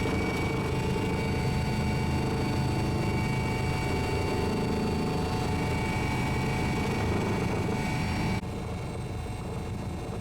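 Helicopter engine and rotor running steadily with a turbine whine, heard from aboard or near the aircraft; the sound drops abruptly and goes duller about eight seconds in.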